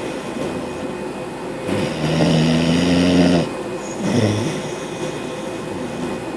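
Bulldog snoring: one long, buzzing snore about two seconds in and a short one about four seconds in. A window air conditioner hums steadily underneath.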